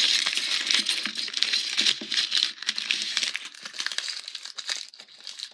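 Aluminium foil crinkling as it is folded and wrapped by hand: a dense run of crackles that dies down near the end.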